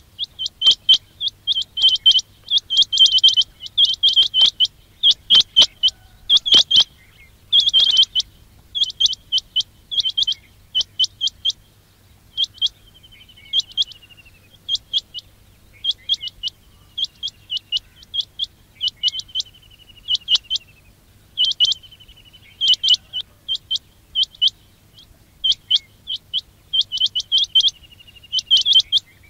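Quail calling: short, sharp, high-pitched notes in quick groups, repeated over and over, with a few longer falling trills between the groups.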